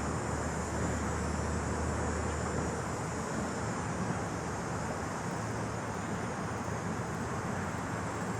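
Steady outdoor background noise with a low rumbling hum, no voice or music.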